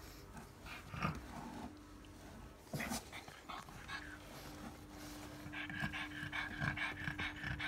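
A pug in labour panting while a puppy is delivered. The panting gets denser and more rhythmic in the last two seconds, over a low steady hum that begins about halfway.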